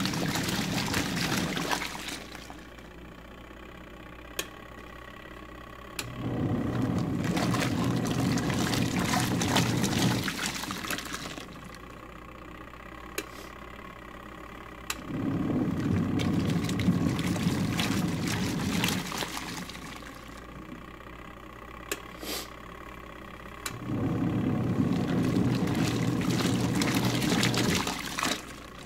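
Twin-tub washing machine's wash tub churning water and clothes in repeated stretches of about four to five seconds, with pauses of about four seconds between them, as the impeller runs its wash cycle. A low steady hum carries on through the pauses.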